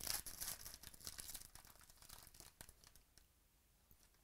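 Foil wrapper of a trading card pack being torn open and crinkled by hand: a crackling tear, loudest in the first second and a half, that dies away after about three seconds.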